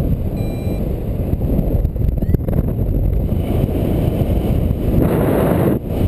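Airflow buffeting the microphone during paraglider flight: a steady low rush that swells louder about five seconds in. A couple of faint short beeps sound near the start.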